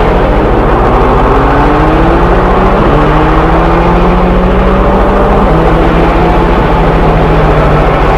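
Train running with a steady, loud rumble and several tones slowly rising in pitch over the first few seconds before levelling off, as when it gathers speed.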